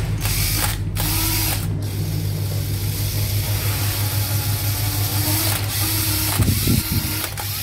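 National EZ6101 cordless drill running free with no load, its motor and gearbox whirring steadily, with a couple of clicks early and a brief slow-down about six and a half seconds in. An intermittent low hum ('ù ù') comes through, which the seller puts down to dry motor bushings that a few drops of oil at each end of the motor will quiet.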